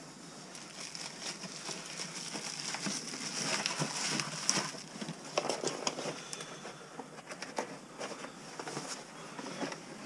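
Cardboard boxes and bubble-wrap packaging being handled, rustling and crinkling, with scattered small clicks and knocks as items are moved about.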